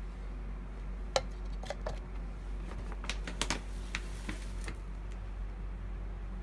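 Light clicks and taps of small objects handled on a glass tabletop: one about a second in, then a cluster in the middle, over a steady low hum.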